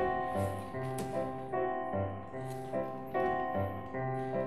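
Piano playing chords over a moving bass line, with new notes struck every half second or so.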